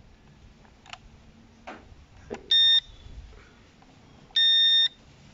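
Budget toy drone's handheld remote controller beeping as it is switched on: a short, high electronic beep, then a longer one about two seconds later, after a couple of faint clicks.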